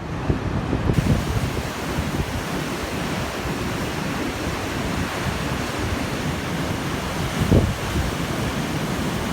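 Rough, typhoon-stirred sea surging against the shore in a steady wash of surf, with wind buffeting the microphone and one stronger gust rumbling about seven and a half seconds in.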